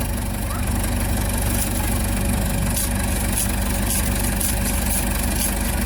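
Ford 755B backhoe engine idling steadily, with a few faint light clicks on top.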